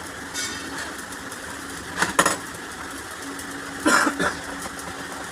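Steady mechanical hum with two short bursts of sharp metallic clinks and knocks, about two and four seconds in, typical of tools and pump parts being handled on a workbench.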